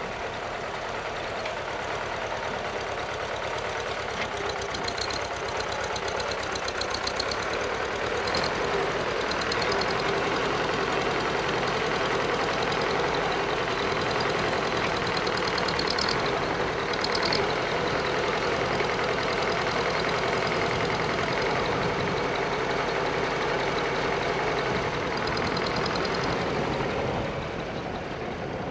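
Farmall Super C tractor's four-cylinder gasoline engine running steadily under load as it drags loosened dirt. It grows louder as the tractor comes close and falls away near the end as it moves off.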